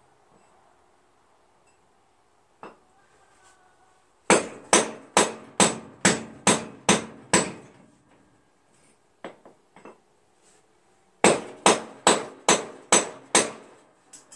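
Hammer blows on metal, two runs of quick, even strikes (about eight, then six) at a little over two a second, each ringing briefly: knocking at a riding mower's rear wheel that is stuck on its axle.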